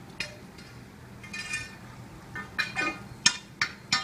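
A pole jabbed down into a flooded storm drain, giving a string of sharp clinks and splashes against the grate and water, with a short rattling scrape about a second and a half in and the strikes coming faster in the last couple of seconds.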